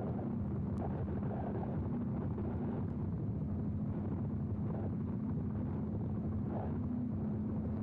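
Tronic Roadrunner electric mini-bike under way: a steady motor hum over low rumble and wind noise.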